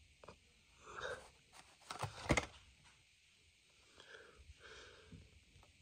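Blister-carded toy car being handled and turned over: a few faint crinkles and taps of the card and plastic bubble, the loudest about two seconds in, with soft breaths between.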